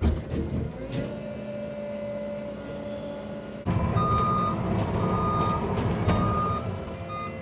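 Cat 306 mini excavator's diesel engine running, then suddenly louder about halfway through as the machine pulls on a vine. From then on its travel alarm beeps about once a second as it tracks.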